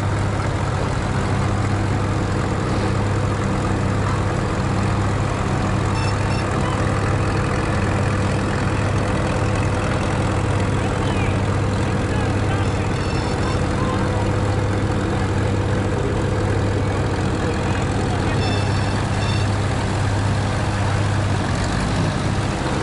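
Old heavy-equipment engine idling steadily, a low even drone that does not change speed.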